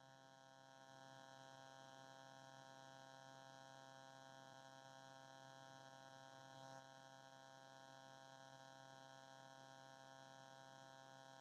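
Near silence: only a faint steady electrical hum, with one very faint brief blip about two-thirds of the way in.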